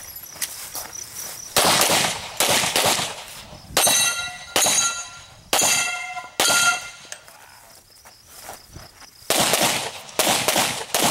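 Pistol shots fired in two strings during a practical shooting stage: about six shots a second or so apart, a pause of roughly three seconds, then quicker shots near the end. Several shots in the middle are followed by a short metallic ringing.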